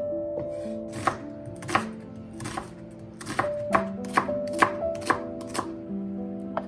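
Kitchen knife slicing sausages on a wooden cutting board: a series of sharp knocks roughly every half second, over soft background music.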